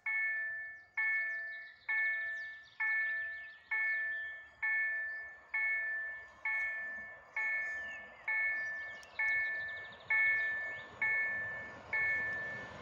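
Level crossing warning bell ringing at an even pace of a little more than one ding a second. Each stroke is a bright, many-toned ring that fades before the next. In the second half the rumble of two coupled EN63A electric multiple units approaching on the rails grows underneath.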